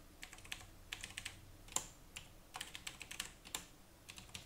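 Computer keyboard being typed on: irregular, fairly faint keystrokes in short runs with brief pauses between words.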